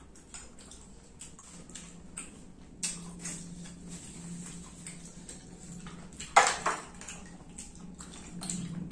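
Eating and table noises: scattered small clicks and taps of fingers, plate and dishes as rice is eaten by hand, over a faint steady hum. A louder short sound comes about six seconds in.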